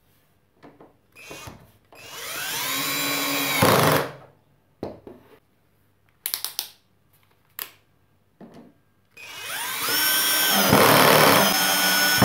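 Cordless drill-driver driving a screw into a cabinet hinge, in two runs of about two and three seconds, its motor whine rising as it spins up each time. Short clicks and handling knocks come between the runs.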